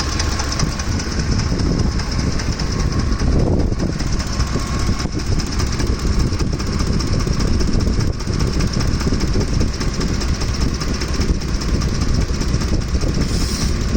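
Ford F-150's 5.4-litre 3V Triton V8 running with a loud, constant, rapid clatter from the top of the engine. The owner suspects a timing chain or camshaft problem, heard only once the engine is hot.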